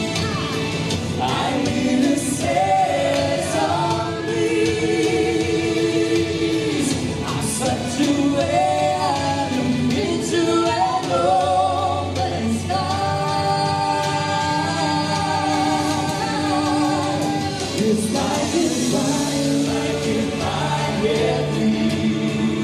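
Pop ballad sung by a male and female duo, with held, wavering sung notes over a full band backing and choir-like backing voices.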